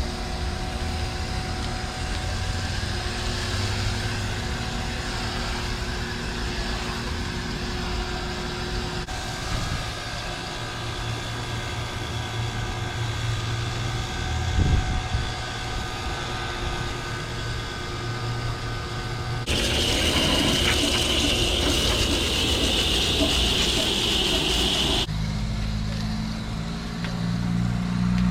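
Air-conditioning units running: a steady mechanical hum with fan noise. The sound changes abruptly a few times, with a loud hissing rush for several seconds past the middle and a stronger low hum near the end.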